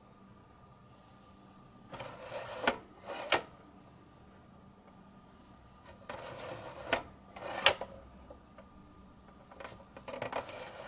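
Plastic View-Master stereoscope viewer's lever being worked to advance the reel. Each advance gives a sharp click and a second click about two thirds of a second later; this happens twice, with faint handling rustle leading into each.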